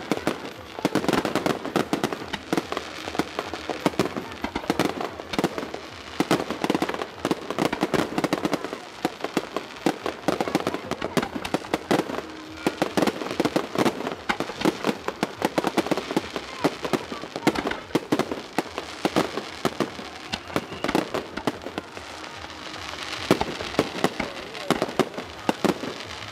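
Fireworks going off: a dense, unbroken run of sharp bangs and crackles, many a second.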